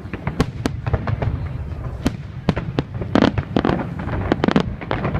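Many fireworks going off at once: a dense, irregular run of sharp bangs and crackles over a continuous low rumble, with a cluster of louder bangs about three seconds in.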